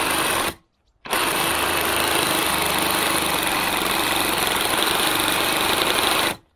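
Cordless reciprocating saw cutting through a tree branch, running steadily at speed. It stops for about half a second shortly after the start, then runs again until just before the end.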